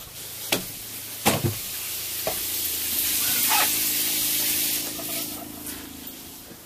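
Water spraying from a camper-van shower, a hiss that swells and then fades, over the steady hum of a small electric water pump. Two sharp knocks near the start.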